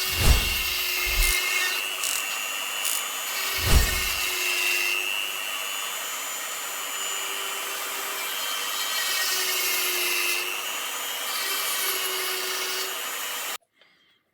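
Power tool running steadily, a hum and a slightly wavering high whine over a rasping cutting noise, with two low thumps in the first four seconds; it stops abruptly near the end.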